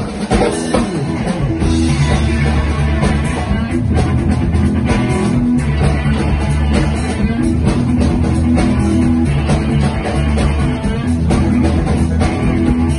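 Live rock band playing electric guitar, bass guitar and drum kit. The drums lead, and the bass and guitars come in with sustained notes about a second and a half in.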